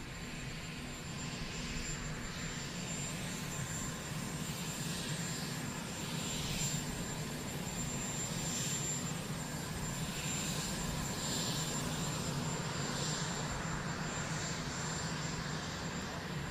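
Jet aircraft engine noise running steadily: a low drone with a thin high whine, and a hiss that swells and fades every couple of seconds.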